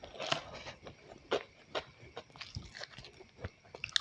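A person chewing a mouthful of fried rice and chicken nuggets close to the microphone, with irregular wet mouth clicks and smacks.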